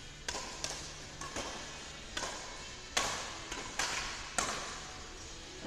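Badminton rackets striking the shuttlecock in a rally: a string of about seven sharp hits, each echoing in a large hall. The loudest come about three and four and a half seconds in.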